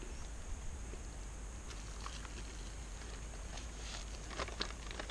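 Soft rustling and a few light clicks from MRE food packets being handled, about two seconds in and again near the end, over a steady low rumble.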